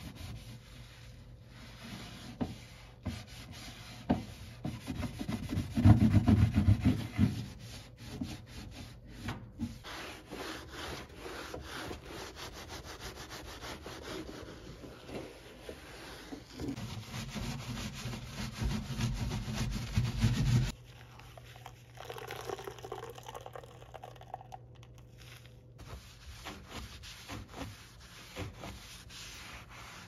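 Damp kitchen sponge rubbing and scrubbing over a microwave oven's interior and stainless steel front in quick back-and-forth strokes. There are two louder stretches of heavier scrubbing, one about six seconds in and one from about seventeen to twenty seconds in that cuts off suddenly.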